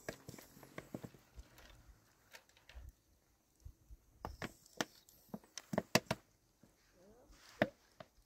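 Scattered sharp clicks and knocks at an uneven pace, several coming close together around four to six seconds in.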